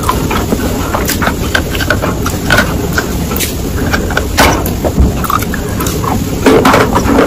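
Crunching and cracking of a slab of dry white clay being bitten and broken, an irregular string of sharp crunches over a steady low rushing noise.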